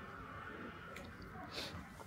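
Quiet room tone with a faint steady hum, a soft click about a second in and a brief hiss about a second and a half in.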